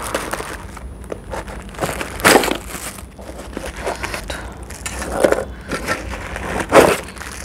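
Packing material rustling and crinkling as a parcel is unwrapped by hand, in irregular bursts, the loudest about two seconds in and near the end.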